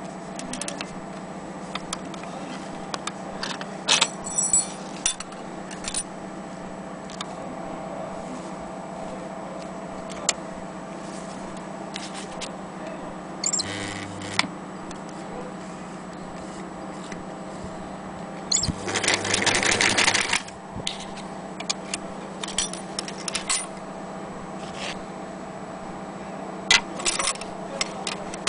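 Singer 201K electric sewing machine stitching through a thick webbing belt with a leather tab: a brief run around a third of the way in and a longer run of about a second and a half past the middle. Clicks and clinks of the belt and its metal buckle being handled are heard around them, over a steady low hum.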